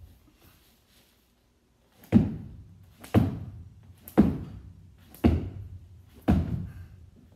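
Five thuds about a second apart as a child's hands land on a rug-covered floor during fast, explosive push-ups.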